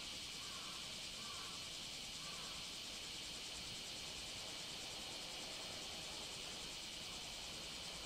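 Steady high-pitched chorus of summer insects calling without a break, with a few faint short chirps in the first two seconds.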